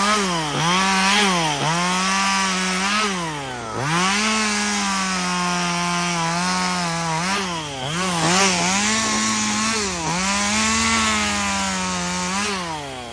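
Chainsaw running at high revs while cutting a branch, its engine note dipping briefly several times as the chain bogs in the wood, then winding down near the end.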